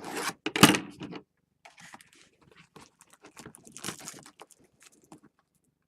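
Cardboard box of baseball card packs being opened and handled: a sharp knock near the start, then scattered rustling and scraping of cardboard and foil packs.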